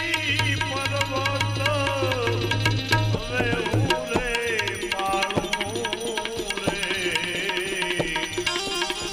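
Devotional bhajan music: tabla drumming steadily under a bending, ornamented melodic line.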